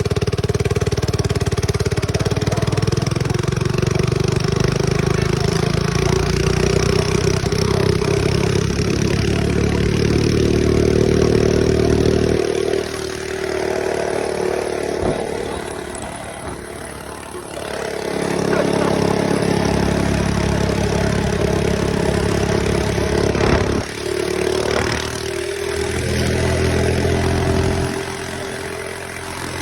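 Mini bike's small engine running under steady throttle while riding, then easing off for several seconds about midway before picking back up, with two brief lets-off near the end.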